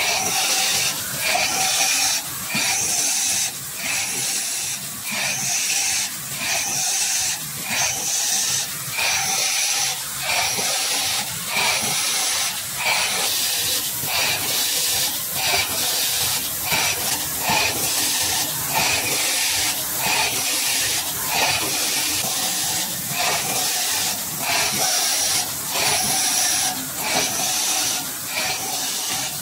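Automatic cup screen printing machine cycling: air hisses in an even, repeating rhythm, from its pneumatic cylinders exhausting with each stroke, over the continuous running of the mechanism.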